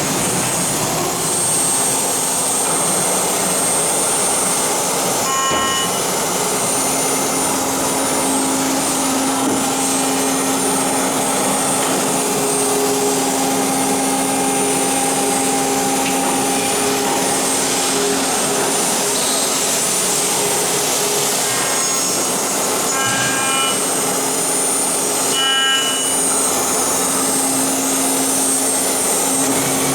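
HSD electric spindle of a CNC machining center running while milling an aluminium profile: a steady loud hum and hiss, with a few brief higher tones ringing out now and then.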